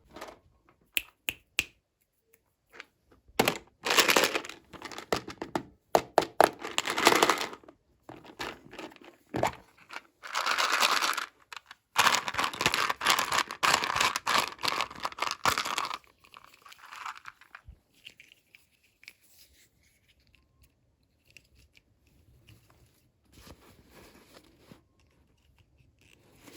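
Packaging being torn open and crinkled by hand, in several rustling bursts of a few seconds each with small clicks and taps between them, fading to faint handling near the end.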